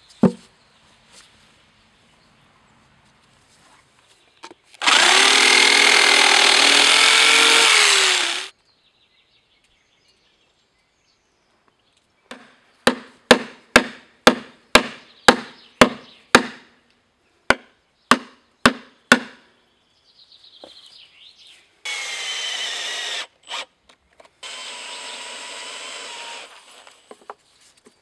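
A handheld electric power tool runs hard for about four seconds, its pitch wavering under load. Then come about fifteen sharp hammer blows on the spruce log in two quick runs, and near the end the power tool runs twice more, more quietly.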